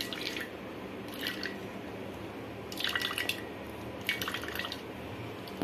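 Wet ground coconut pulp squelching as it is pressed by hand in a small steel strainer, with coconut milk dripping through into a steel bowl. It comes in four short spells.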